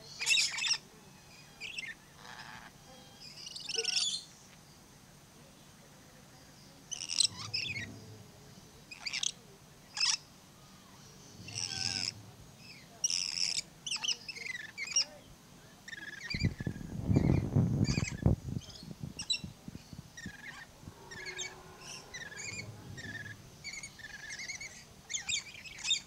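Lories calling: short, shrill chirps and squawks, some in quick runs, scattered throughout. About seventeen seconds in, a low noisy rush lasts about two seconds.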